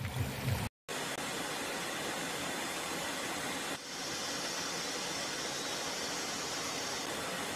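Steady, even rushing noise of jet aircraft in flight, as heard on air-to-air footage, coming in after a brief break in the sound near the start and dipping briefly about four seconds in.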